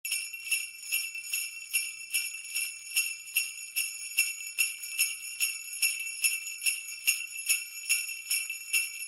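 Sleigh bells jingling, shaken in a steady rhythm.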